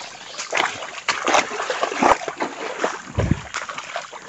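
Floodwater sloshing and splashing with each stride as people wade deep through it, in repeated surges. There is a short low thud about three seconds in.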